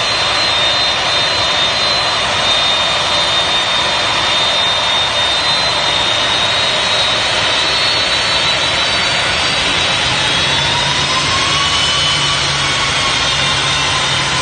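Lockheed C-5M Super Galaxy's four General Electric CF6-80C2 (F138) turbofans running as the aircraft taxis: a loud, steady jet roar with a high whine. About two-thirds of the way in, a lower whine rises and then falls back.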